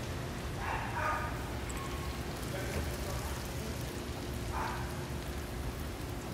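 Steady sizzle of a deep fryer's hot oil, with gloved hands squishing pork pieces through thick starch batter in a steel bowl.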